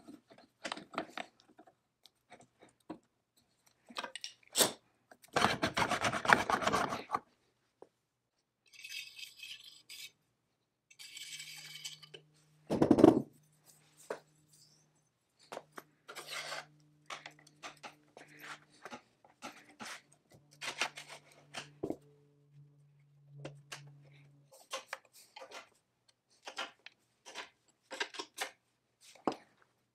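Small steel parts, bolts and hand tools clinking, tapping and scraping against the cast-iron frame of a Foley Automatic Filer Model 61 saw sharpener as it is put back together. A longer rasping rub comes about six seconds in and a sharp knock about thirteen seconds in, with scattered small clicks in between.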